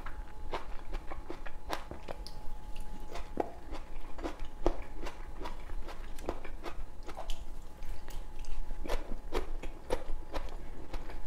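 Close-up chewing and biting of raw tomato slices, a string of many short, irregular mouth clicks.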